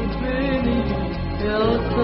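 Arabic song music: an instrumental passage with a melody that bends in pitch, over a steady bass accompaniment.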